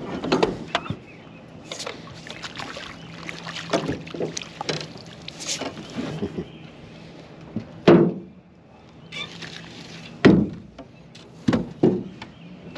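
Knocks, clanks and rattles against a small aluminum jon boat's hull as a white crappie is netted and lifted aboard, with a few louder thumps in the second half.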